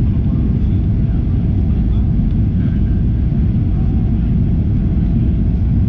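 Steady in-flight cabin noise of a Boeing 737-800: a constant low rumble of its CFM56 turbofan engines and rushing airflow, heard from a window seat over the wing.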